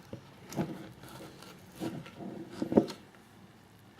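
Small teaspoon scraping and knocking against a container while scooping coconut oil, a handful of short clicks and scrapes, the sharpest about three-quarters of the way through.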